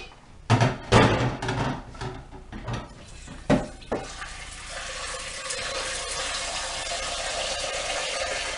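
A few knocks and clatter of a pot being handled, then a kitchen tap running steadily into the pot to fill it with water for boiling, shut off suddenly near the end.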